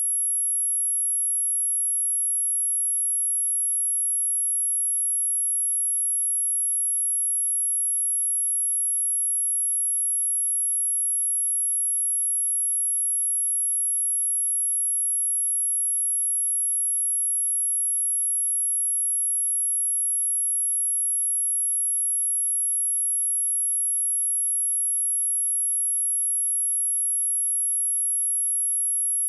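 A steady, high-pitched pure sine tone at 11204 Hz, held unchanged at one level: a speaker test tone, also played to vibrate water and dust out of a speaker.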